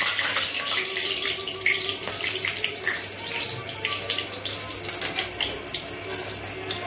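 Bay leaves sizzling and crackling in hot oil in a kadai as the oil is tempered, the sizzle slowly dying down.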